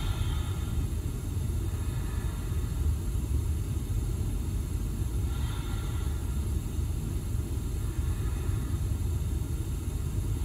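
Steady low background rumble with no speech or music. A faint breath comes once about five and a half seconds in.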